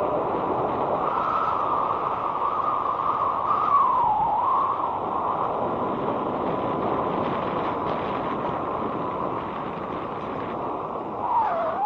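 Wind rushing over a helmet-mounted action camera's microphone during an electric scooter ride, with a faint whine that wavers up and down in pitch a few times. The rush eases a little near the end.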